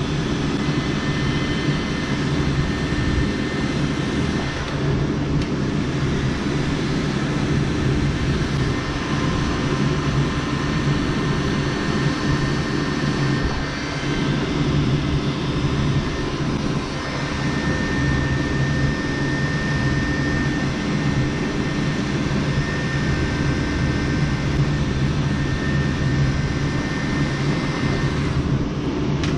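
Steady mechanical whir and hum from a running motor, with a few faint high tones, going on without let-up.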